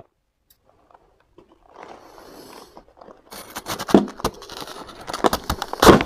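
Metal spoon digging and scraping into a bowl of shaved ice, a dense granular crackle of ice crystals that starts about three seconds in, with two louder crunches near four and six seconds in.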